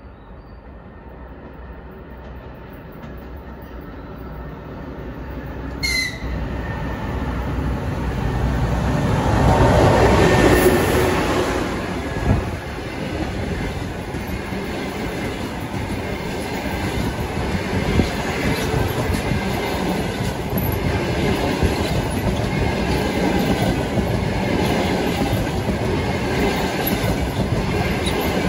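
EP20 electric locomotive hauling a passenger train approaches, growing steadily louder, and is loudest as it passes about ten seconds in. The coaches then roll by with a continuous rumble and clickety-clack of wheels over rail joints. A brief high tone sounds about six seconds in.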